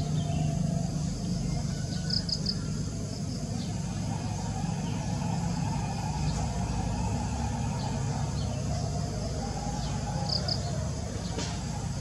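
Outdoor ambience: a steady low rumble under a thin, constant insect drone, with a bird giving a quick burst of three high chirps twice, about two seconds in and again near the end.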